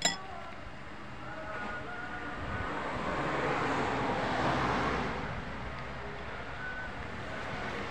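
A vehicle passing on the road: its noise swells to a peak about four seconds in, then fades away.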